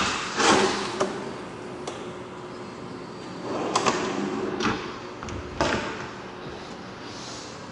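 Kitchen cabinet drawers sliding open and shut on their runners, each stroke ending in a knock. A cabinet door thuds near the end.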